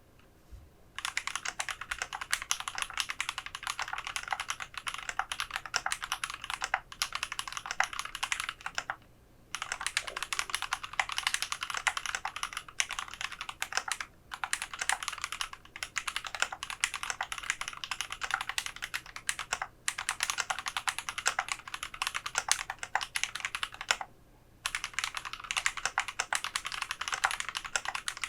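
Fast, continuous typing on a GMMK Pro mechanical keyboard with lubed SP-Star Meteor White linear switches, a polycarbonate plate and PBT keycaps. The typing starts about a second in and runs as a dense stream of key clicks, broken by brief pauses around a third of the way in and again near the end.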